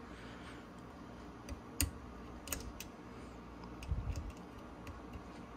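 Scattered light clicks and taps of an automatic center punch and the wooden AK-47 stock being handled as the punch is lined up to mark a screw hole, with one sharper click a little under two seconds in and a few soft knocks around four seconds.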